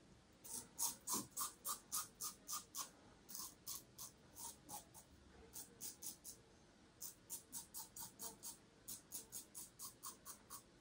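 Slant-bar safety razor (Razorock Superslant L2++ with a Triton blade) scraping through lathered stubble in short strokes, about three a second, in runs with brief pauses between them.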